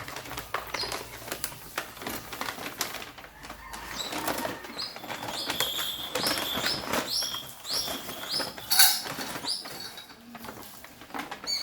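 A run of clicks and knocks as things are handled, the loudest one just before 9 s. From about halfway in, a bird chirps over them in short, repeated rising notes.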